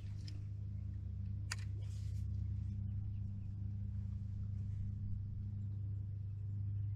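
Lawnmower engine running steadily in the background as a low, even hum. A single sharp click about a second and a half in.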